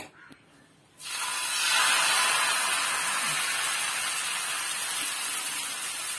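Thin onion-oats dosa batter sizzling as it is poured onto a hot, oiled cast-iron tawa. The loud hiss starts suddenly about a second in and holds steady.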